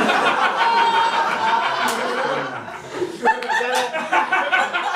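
Audience laughing.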